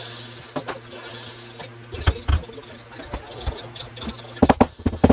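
Irregular knocks and thumps of wooden layout sections and benchwork being handled and taken apart, with heavier thumps about two seconds in and a cluster of sharp knocks near the end, over a steady low hum.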